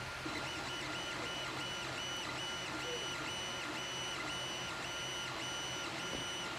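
3D printer at work: its stepper motors whine in short, even strokes, about three a second, as the print head moves back and forth, over a steady hum.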